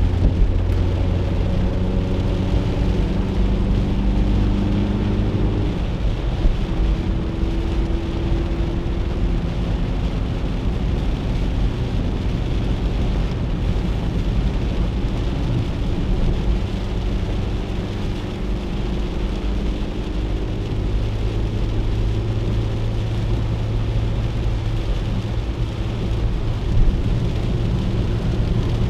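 A 1997 Chevrolet Corsa Wind's 1.0-litre four-cylinder engine droning at highway speed, heard from inside the cabin over a steady hiss of rain and tyres on a wet road. The engine note climbs over the last several seconds, and there is a brief knock near the end.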